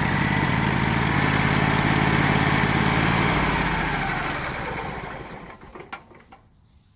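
Bandsaw sawmill's small engine running steadily, then winding down and dying away between about four and six seconds in as a cut through a yew log ends, with a few light knocks as it stops.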